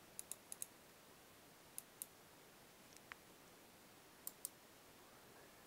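Faint computer mouse clicks: four pairs of quick clicks, like double-clicks, spread through an otherwise near-silent stretch.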